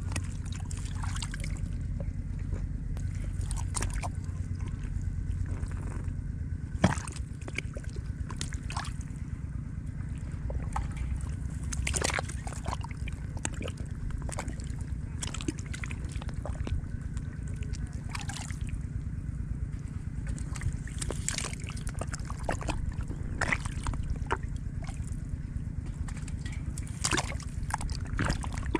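Shallow water sloshing and splashing in a flooded rice field, with many short, irregular splashes over a steady low rumble. One sharp knock stands out about seven seconds in.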